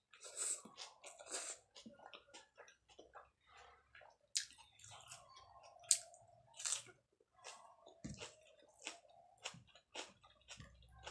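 Close-up chewing of a hand-fed mouthful of rice and mustard greens: many short, wet mouth clicks and smacks.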